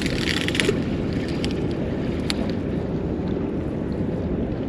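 Strong wind buffeting the microphone in a steady low rumble, with a brief higher hiss at the start and a few faint clicks.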